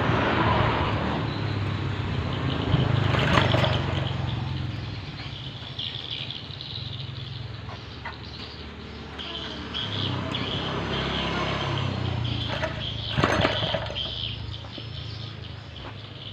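Small ketingting longtail boat engine being cranked to start, turning over in surges with sharp clicks about 3 and 13 seconds in, without catching.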